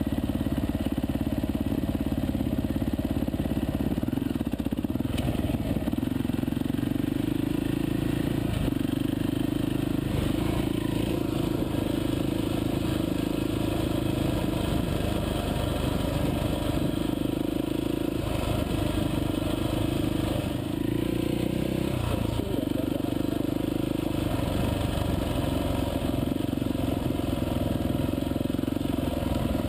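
Dirt bike engine running steadily under way, its pitch shifting up and down a little with the throttle, recorded from the bike itself.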